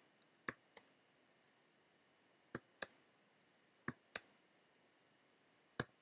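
Computer keyboard keystrokes, sparse and sharp, mostly in pairs about a quarter second apart: a letter key then Return, answering yes/no prompts one at a time. There are faint gaps between them.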